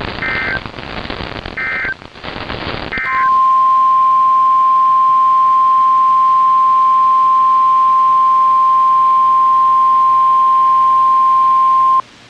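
Three short warbling data bursts of an EAS SAME header over radio static, about a second apart. Then the NOAA Weather Radio warning alarm, a loud steady 1050 Hz tone, holds for about nine seconds and cuts off suddenly.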